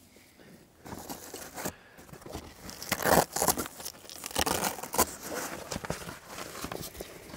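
Irregular crinkling and rustling of something being handled or crushed, louder around three seconds in and again around five seconds.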